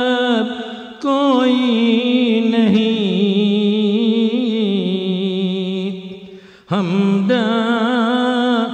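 A man's voice chanting a marsiya, the Urdu elegy for the martyrs of Karbala, in long drawn-out notes with a wavering pitch. The voice breaks off briefly about a second in, fades out around six seconds in, and comes back in with a rising glide.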